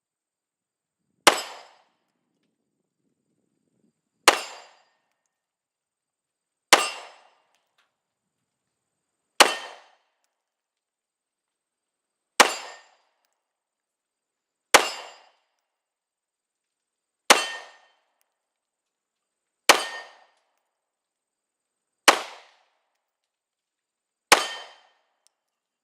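Glock 19 Gen 5 9mm pistol fired in slow single shots: ten shots, about two and a half to three seconds apart, each a sharp crack with a short ringing tail.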